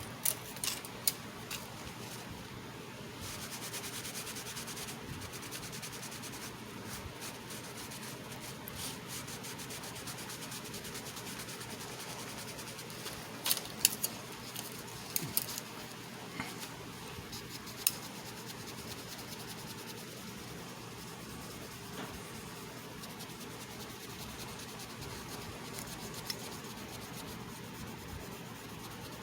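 Small hand-work sounds of rubbing and scraping over a steady hiss, with a few sharp clicks and taps in the first second and a half and a cluster about halfway through.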